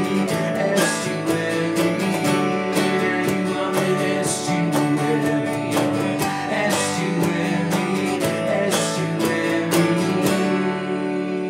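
Small band playing live: strummed acoustic guitar with a Nord Electro 6 keyboard, bass guitar and steady percussion hits. The playing thins out and the last chord rings and fades near the end.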